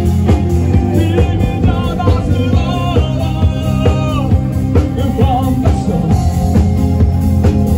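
A street band playing a rock song: a voice singing over a drum kit with a steady beat.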